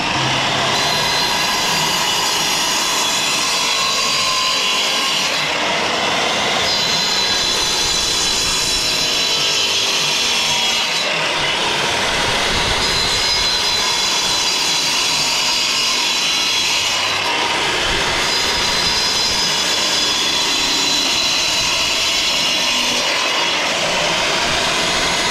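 Handheld power disc cutter running and cutting through clay bricks, a loud, steady grinding whine. The whine eases briefly about four times as the blade passes from brick to brick.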